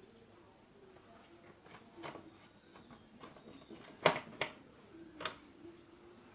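Light clicks and knocks of the old radio's parts being handled and put back together. The loudest is a sharp click about four seconds in, followed by two more.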